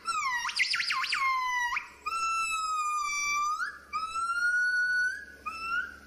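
Male crested gibbon (black with pale cheek patches) singing: a series of pure, whistled notes that swoop in pitch, with a fast up-and-down warble about half a second in, then long, nearly level notes that rise at their ends.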